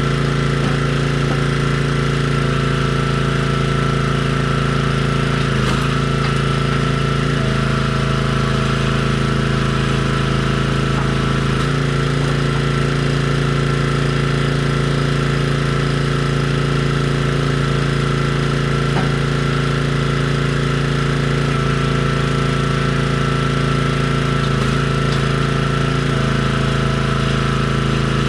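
Engine running steadily at a constant speed, loud and unchanging.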